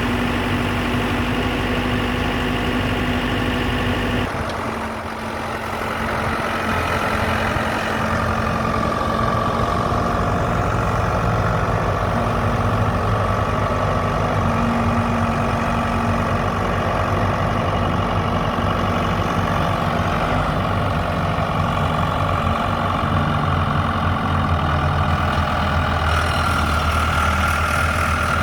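Case 580 Super M backhoe's diesel engine running steadily. Its note changes abruptly about four seconds in, and a steady high whine runs from there on.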